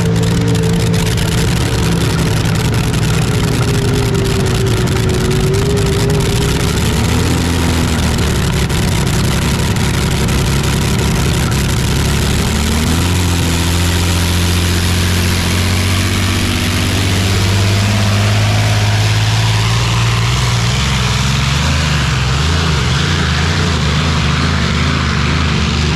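Modified pulling tractor's engine running loudly at a steady idle close up, its pitch shifting about halfway through and then settling into a steady low rumble.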